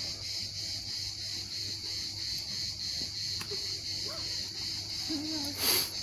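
A steady, high-pitched chorus of insects, with faint distant voices underneath and one short burst of noise near the end.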